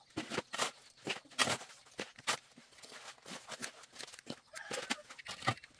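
Steel shovel scraping and chopping through a wet sand mix on a hard ground, in repeated, irregular strokes while the mix is being turned.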